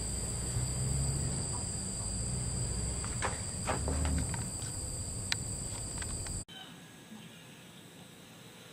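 Crickets trilling in a steady high tone, with a few light knocks of handling. About six and a half seconds in, the sound cuts off abruptly to a much quieter outdoor background.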